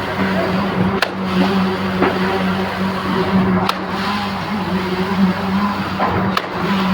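Concrete pump running steadily under its engine, with a sharp clack about every two and a half seconds.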